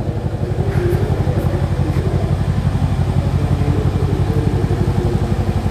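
Mercedes-AMG C63's twin-turbo V8 idling steadily, heard from behind at its quad exhaust tailpipes, with an even, fast pulsing beat.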